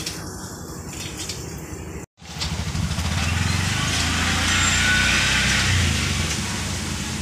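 John Deere tractor's diesel engine running steadily at idle. The sound drops out completely for a moment about two seconds in, then comes back louder.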